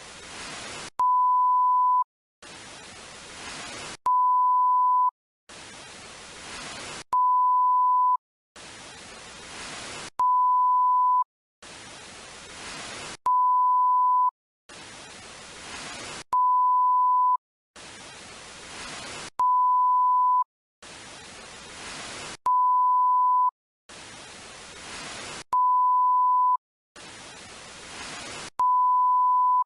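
Television static hiss alternating with a steady test-tone beep, about a second each, repeating roughly every three seconds; the beep is much louder than the hiss.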